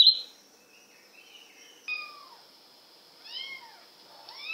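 Cat meowing: three short calls, each rising and falling in pitch, about a second apart, after a brief burst of high bird chirps at the very start.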